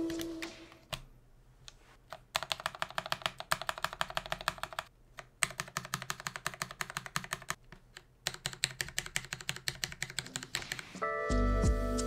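Tall stabilized keycaps on a Mountain Everest Max numpad, on freshly lubed and clipped Cherry stabilizers, pressed rapidly over and over in three runs of a few seconds each, with short pauses between. Each press gives a sharp clack. The stabilizer result is judged not the best, but OK to use.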